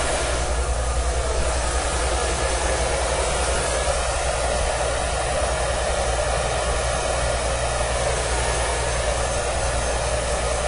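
Handheld blow dryer running steadily with an even whoosh and low hum, blowing on freshly applied Pros-Aide adhesive to dry the glued edge of a bald cap.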